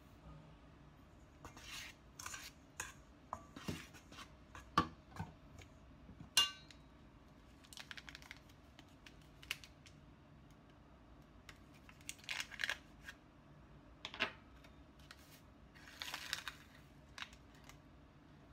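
Metal spoon clinking and scraping against a stainless steel mixing bowl as sugar is spooned into flour, with two sharp clinks about five and six seconds in, then the crinkle and rustle of a small yeast sachet being opened and handled, in short bursts near the middle and end.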